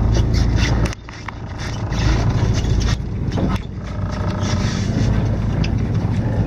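Fishing boat's engine running steadily with a low drone, wind noise on the microphone, and scattered light clicks; the sound drops briefly about a second in.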